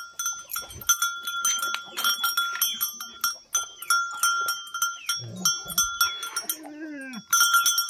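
A metal bell hanging from a chained Bhote Kukur dog's collar clanks and rings again and again as the dog moves, with the tether chain rattling. There is a short falling cry near the end.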